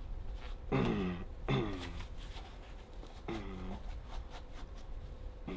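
A man grunting with effort while bending a short steel training nail by hand: three short strained grunts, about a second in, shortly after, and again past the middle, each dropping in pitch.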